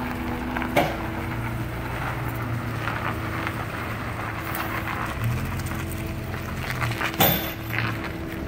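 Pickup truck engine running as it tows a travel trailer away at low speed. There is a sharp knock about a second in and a louder one near the end.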